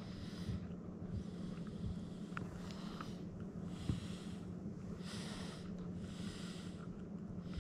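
A white Shiba Inu breathing through its nose right at the microphone: repeated hissing breaths, roughly one a second, with a few small clicks. A steady low hum runs underneath.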